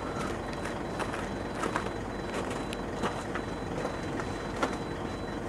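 Karba 14-metre folding boom platform running: a steady motor and hydraulic noise, a thin unbroken high-pitched tone and a few light clicks.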